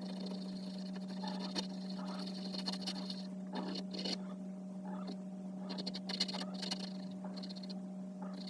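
Stabilo CarbOthello pastel pencil scratching over Clairefontaine Pastelmat paper in short, irregular strokes as the artist shades, over a steady low hum.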